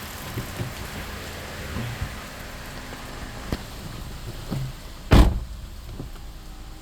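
Steady rain with scattered small taps of drops, and one loud, short thump about five seconds in.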